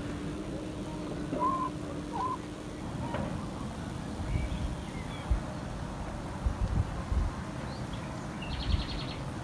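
Birds calling: two short calls about a second and a half in, then a short rapid trill near the end. Low rumble and a few soft thumps run underneath.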